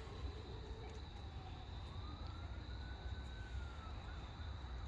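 Faint siren wailing, one slow rise and fall in pitch, over a steady low rumble.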